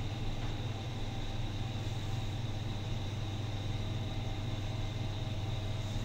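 Sigma passenger elevator car travelling upward: a steady low hum with a faint, steady high whine above it.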